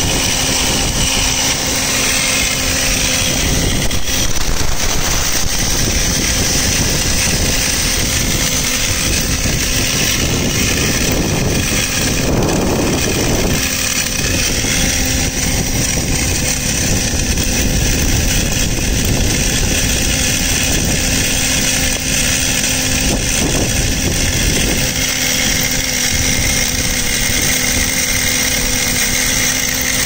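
Microduct fiber cable blowing machine running on compressed air: a steady, loud, engine-like drone with hiss of air, swelling into a louder rush for about a second and a half a little before halfway.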